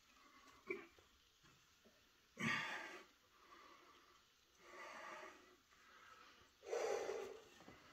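A man breathing hard while straining in flexed poses: a short sniff, then three heavy, breathy exhalations about two seconds apart, the first and last loudest.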